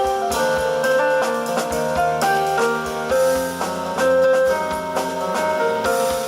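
Jazz piano trio playing live: piano chords and short repeated notes over bass and drums.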